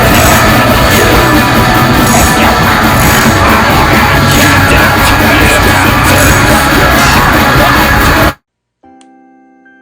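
Loud, dense music with shouting-like vocals that cuts off suddenly, followed a moment later by a quiet sustained keyboard chord with a few single notes above it.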